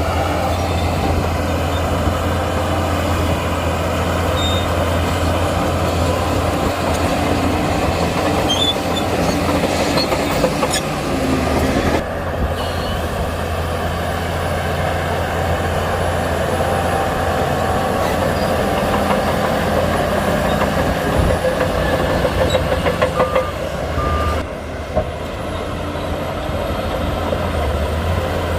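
Heavy diesel engine of a Shantui bulldozer running steadily under work. The sound changes abruptly about twelve seconds in and again near the end.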